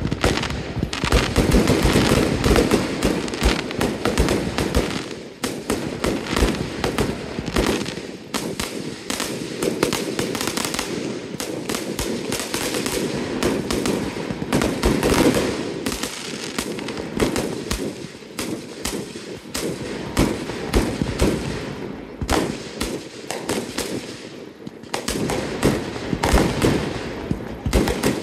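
Fireworks display: aerial shells bursting overhead in a rapid, continuous barrage of bangs and crackles, easing briefly a few seconds before the end before building again.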